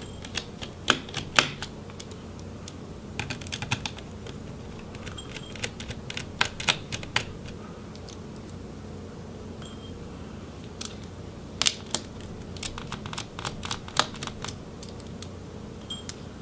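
Scattered light clicks and taps of a small Phillips screwdriver and metal screws as the battery screws come out of a laptop's base, some in quick runs of several clicks, over a faint steady hum.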